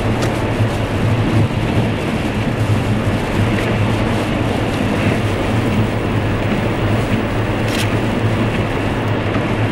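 Car driving on a wet road in the rain: a steady hiss of tyres and rain over a low, even drone. One short click comes about eight seconds in.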